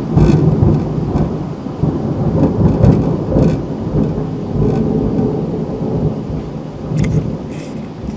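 Long rolling thunder, a deep rumble that swells and ebbs and slowly fades toward the end, over the steady hiss of torrential rain. A few raindrops tap sharply near the end.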